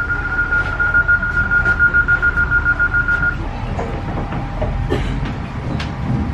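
Passenger train door-closing warning tone: a steady high beep with a fast pulse that stops about three seconds in, over the low rumble of the train.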